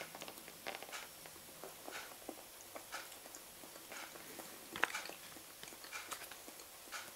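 Faint chewing of dried chechil string cheese, with scattered soft mouth clicks and one sharper click a little before five seconds in.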